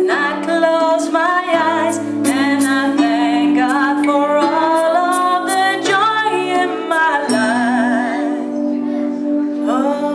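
A woman singing a slow song with wide vibrato on held notes, over a sustained musical accompaniment.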